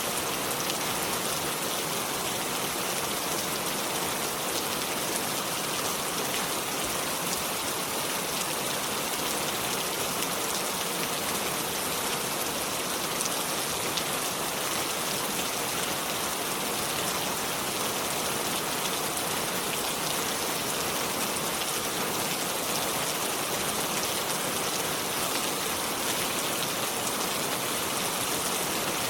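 Steady rain falling, an even hiss with scattered fine drop patter.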